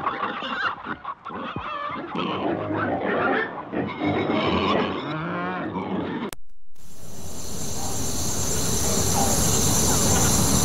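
Several animal calls mixed together, pitched and wavering, for about six seconds, then cut off suddenly; after the cut, a steady outdoor-sounding noise with a high hiss that slowly grows louder.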